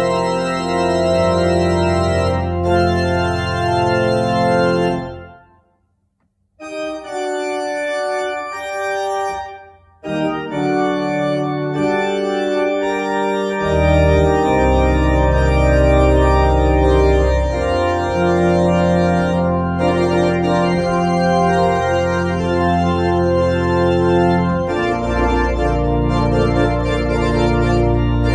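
Church organ playing sustained chords on the manuals with deep pedal bass notes. About five seconds in it breaks off to a moment of silence. It comes back without the bass, and the pedal bass returns about fourteen seconds in.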